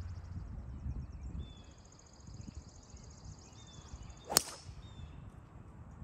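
Golf club swung through and striking a golf ball: a brief swish leading into one sharp crack about four seconds in, over a steady high trill and a few chirps.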